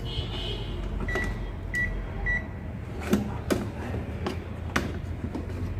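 ZOYI ZT-X digital multimeter giving three short, high beeps about half a second apart as its buttons are pressed to set it to continuity buzzer mode. Several sharp clicks and knocks of handling follow.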